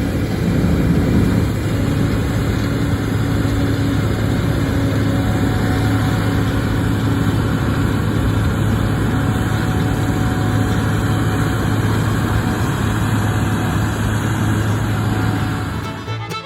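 Combine harvester running steadily while cutting wheat, heard from inside the cab: a constant low engine hum under a dense, even machine noise.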